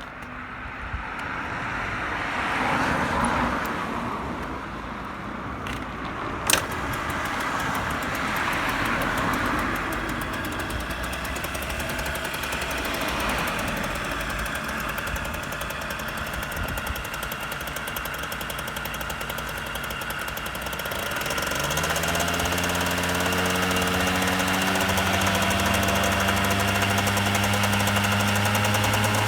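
Yamaha DT50's 50cc two-stroke single-cylinder engine running, its sound swelling and fading several times at first, then settling into a steady idle after about twenty seconds. A single sharp click comes about six seconds in.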